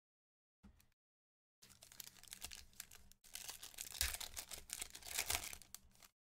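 Foil wrapper of a trading-card pack being torn open and crinkled by hand, a dense crackling rustle full of small clicks that starts about a second and a half in.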